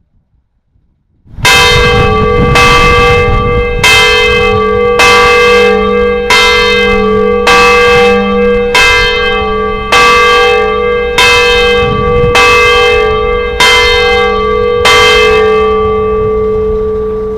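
A single church bell tolling steadily, about twelve strokes roughly 1.2 seconds apart, each stroke still ringing when the next lands. The last stroke is left to ring on and fade.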